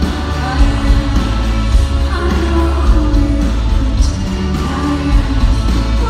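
A live band playing a pop-rock song through a festival sound system, a woman singing over heavy bass and drums, heard from the crowd.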